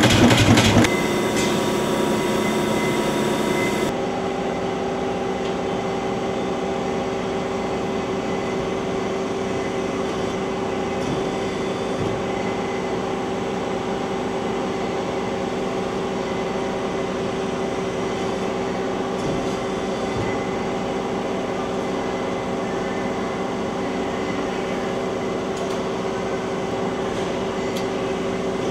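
CNC turret punch press finishing a run of rapid punching on sheet steel, stopping about a second in. After that a press brake runs with a constant, steady hum, with a few faint clicks.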